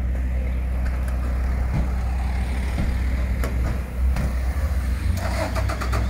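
A vehicle engine idling, a steady low hum, with a few faint clicks near the end.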